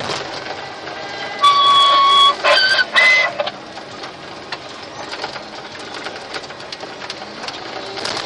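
Steady machine noise with frequent rattles and clicks inside the cab of a Komatsu WA800 wheel loader working snow. About a second and a half in, three loud whistle-like tones step up in pitch; the first is held almost a second.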